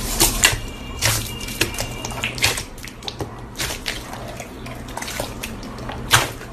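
Crunchy slime being squeezed and pressed by hand, giving irregular wet crackles and pops, the sharpest one about six seconds in.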